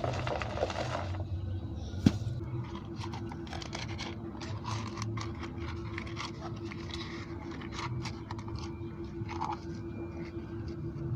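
Small handling sounds: scraping, rustling and light clicks, with one sharp click about two seconds in, over a steady low hum.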